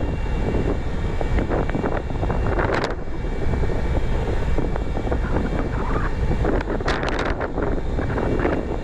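A gut ship's grab crane and machinery running during cargo handling: a steady, loud mechanical din with a few short knocks, clearest about three and seven seconds in. Wind is on the microphone.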